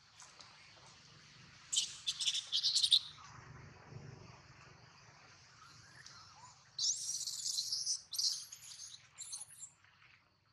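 Two bunches of shrill, chirping animal calls, about two seconds in and again from about seven seconds in, over a steady high buzz.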